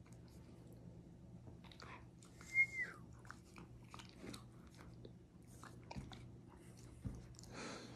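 Siberian husky mouthing and nibbling close to the microphone: scattered small clicks and smacks. About two and a half seconds in comes one short high whine that drops in pitch.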